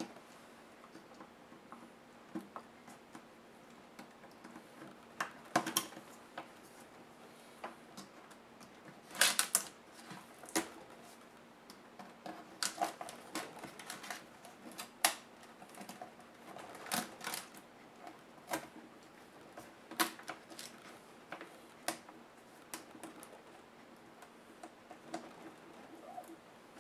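Irregular clicks and taps of a small screwdriver and plastic laptop case parts being handled during disassembly, with a few louder clacks over a faint steady hum.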